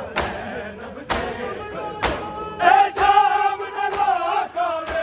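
Mourners performing matam, beating their chests with their hands in unison about once a second. A group of men chants a noha lament over the beat from about one and a half seconds in.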